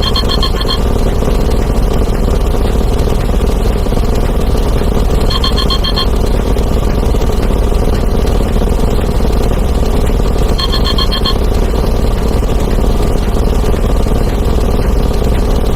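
A loud, unbroken din of many sound effects played over one another. Through it an electronic alarm-clock beep sounds in quick runs of beeps, about every five seconds.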